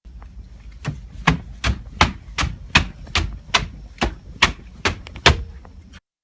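Running footsteps: about a dozen quick, evenly spaced steps, two to three a second, cutting off abruptly near the end.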